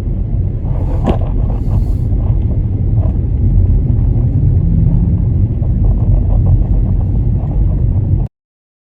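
Car road noise heard from inside the moving car: a steady low rumble of engine and tyres, with a brief higher-pitched sound about a second in. It cuts off suddenly near the end.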